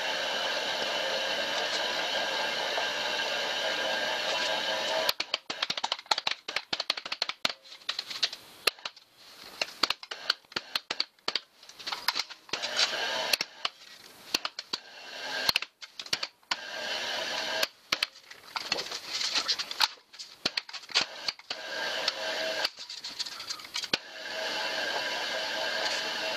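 Sheet-metal rolling machine forming the edge of a steel bicycle mudguard. A steady running sound gives way, about five seconds in, to a long run of rapid, irregular clicks and metal rattles as the piece is worked through the rollers, then returns near the end.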